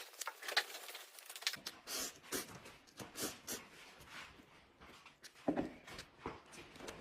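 Close-miked eating sounds: irregular wet chewing, smacking and mouth clicks of a person eating, with a couple of louder bites about half a second in and again near the end.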